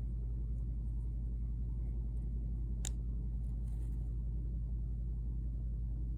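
Steady low rumble of an idling vehicle engine, with one sharp click about three seconds in.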